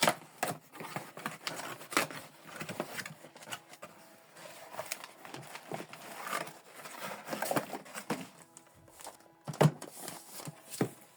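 Irregular clicks, taps and crinkling of objects being handled, over faint background music.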